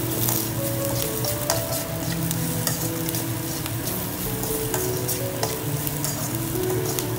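Chopped onions, dried red chillies and curry leaves sizzling in oil in a stainless steel pan while a metal slotted spoon stirs and scrapes them, with a few sharp clicks of the spoon against the pan. The onions are being sautéed in the tempering.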